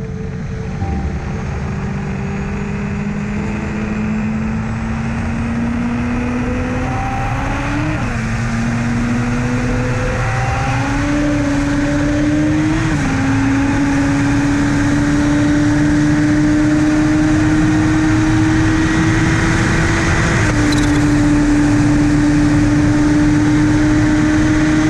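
Turbocharged Honda CBR1000RR four-cylinder engine of a land speed motorcycle under full acceleration, heard from on board. It climbs in pitch through each gear, with about four upshifts, the last just past the twenty-second mark, while the loudness keeps rising.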